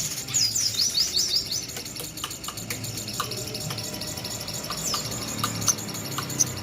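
Sogon bird singing: short runs of quick, high chirps that sweep downward, with single short ticking notes in between.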